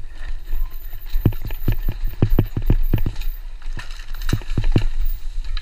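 Downhill mountain bike clattering over a rough, rooty dirt trail: a quick, irregular run of sharp knocks and rattles as the wheels and frame take the bumps, over a steady low rumble.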